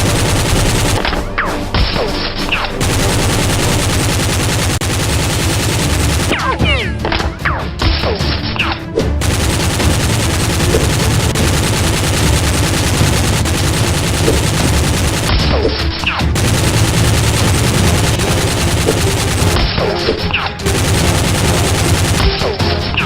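Dense rapid gunfire sound effects, continuous bursts of automatic fire and single shots with hardly a pause.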